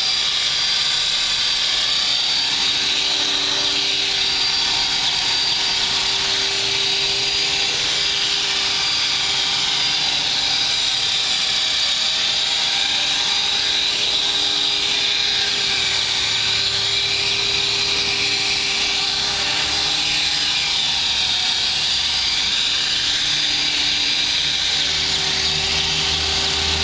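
Honey Bee King 3 electric RC helicopter hovering: the steady high whine of its electric motor and gears with the buzz of the main rotor, its pitch wavering up and down as the throttle is worked. Its chipped main blades are patched with scotch tape and balanced.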